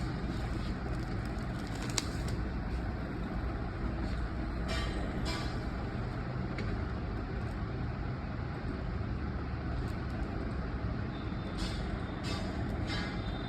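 Steady low background rumble, with a few short clicks and rustles scattered through it.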